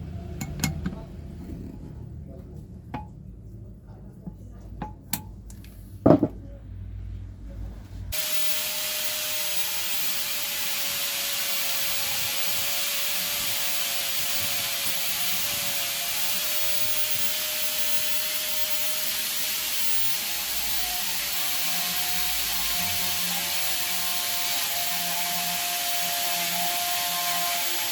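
A few clicks and knocks of handling, the sharpest about six seconds in. Then, about eight seconds in, an angle grinder switches on and runs steadily, with a strong high hiss and a steady whine.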